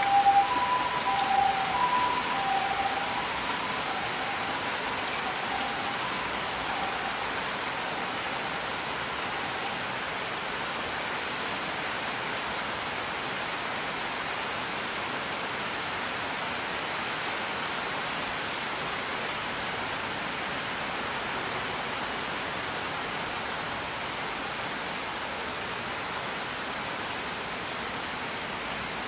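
Heavy rain falling steadily, an even hiss. Over the first several seconds, two tones alternate high and low and fade away.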